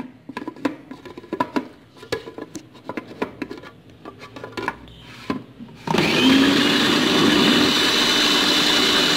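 Plastic clicks and knocks as the lid is fitted onto an electric food processor bowl. About six seconds in, its motor starts suddenly and runs steadily with a whine, chopping onions, ginger, garlic and green chillies.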